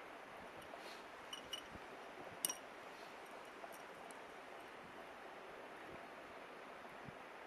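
Steady rush of a flowing mountain river, with a few light clicks and one sharper click about two and a half seconds in.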